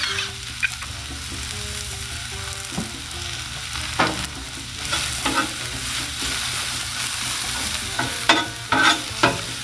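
Sliced onions sizzling steadily on a hot steel griddle. A metal spatula scrapes and knocks against the griddle top about 4 and 5 seconds in, then several times in quick succession near the end as it spreads the onions.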